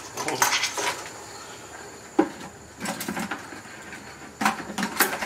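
A live blue crab is dropped into a stainless-steel stockpot with metal tongs: scattered knocks and scrapes of shell and tongs against the pot, with a sharp click about two seconds in.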